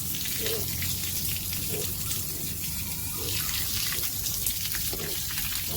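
Water running steadily, with a few faint short sounds in between.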